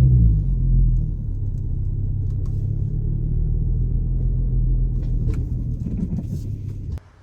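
The 3.2 VR6 engine of an Audi TT on the move, with road rumble heard from inside the car with the windows down. The engine note swells briefly at the start, then holds a steady drone, and the sound cuts off suddenly about seven seconds in.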